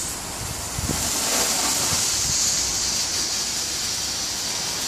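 Small Weco 'Geisterlicht' red Bengal light burning with a steady, loud hiss as it throws off sparks.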